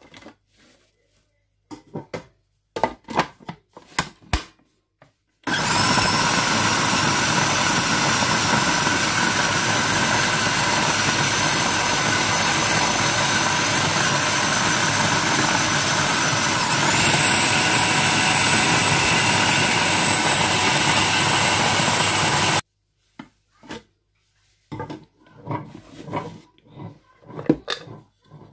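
Electric food processor grinding bread into breadcrumbs: a loud, steady motor whine starts about five seconds in, rises in pitch partway through, and cuts off sharply. Before and after it come knocks and clatter of bread dropping into the plastic bowl and the lid being handled.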